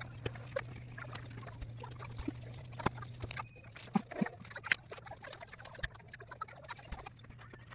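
Scattered light clicks and taps of small laser-cut wooden model parts being handled on a tabletop, with a low steady hum that stops about halfway through.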